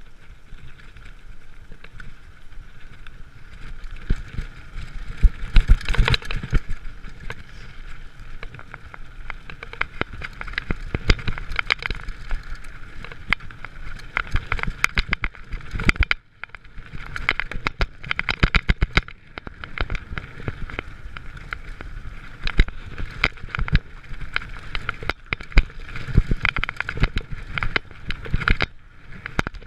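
Giant mountain bike ridden fast down a rough dirt and gravel trail: the bike rattles and clatters over bumps and stones, over a steady rush of tyre and wind noise, with a brief lull about halfway through.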